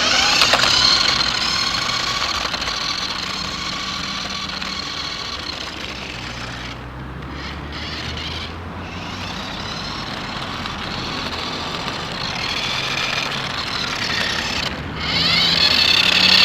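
Small electric motor of a toy remote-control Lamborghini Murcielago car whining as it drives, the pitch shifting as it speeds up and slows. It drops out briefly a few times.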